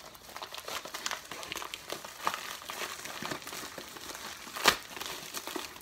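Packaging crinkling and crackling as hands wrestle with a tightly sealed shipping package, with one sharp snap a little before the end.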